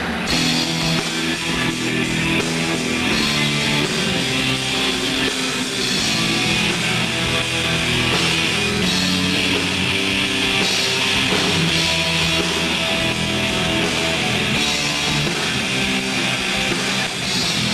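A rock band playing live: electric guitar over a drum kit, continuous and steady.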